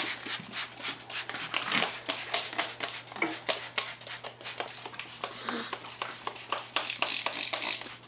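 Lube applicator bottle with a foam tip being dabbed and rubbed along a motorcycle tire's bead and rim, a quick run of scrubbing strokes and small clicks. The bead is being lubed because the tire is tough to get over the rim.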